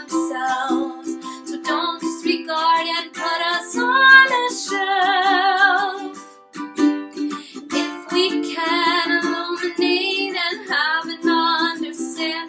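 A woman singing with a wavering vibrato while strumming chords on a ukulele, with a short break in the voice about halfway through.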